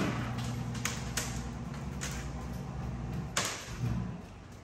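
Motor of a homemade jet ski flipper running steadily with a low hum as it rotates a jet ski hanging in lifting straps, with a few sharp knocks along the way. The motor stops about four seconds in.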